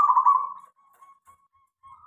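Zebra dove (perkutut) cooing in a cage: the rapid rolling end of one song phrase in the first half-second, a pause with a few faint soft notes, then the next phrase beginning near the end.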